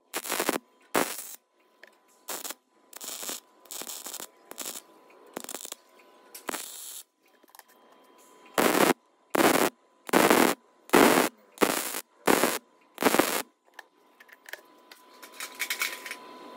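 MIG welder laying a series of short tack welds on steel, each a brief crackling buzz separated by short silences. The loudest run comes in the second half: about seven tacks, roughly two-thirds of a second apart.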